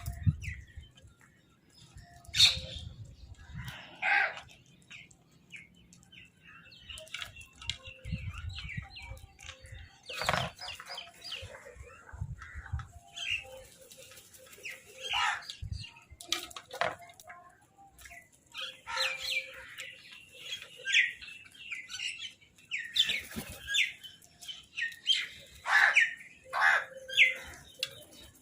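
A group of crows calling over food in many short, harsh calls, irregular and overlapping, with bursts of wing flapping.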